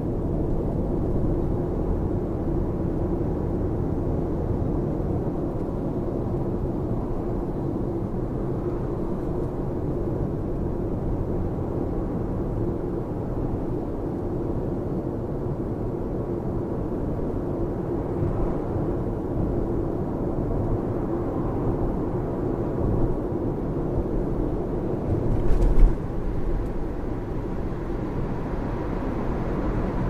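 Steady road and tyre noise inside the cabin of a Lexus RX 450h cruising on a highway: a low, even rumble with a faint steady hum. A short bump comes late on.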